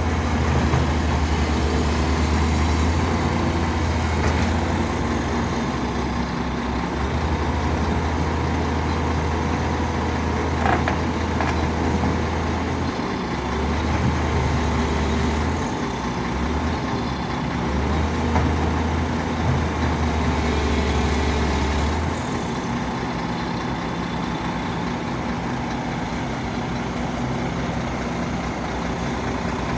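Excavator's diesel engine running with dense mechanical noise. A strong low drone drops in and out several times and stops about two-thirds of the way through.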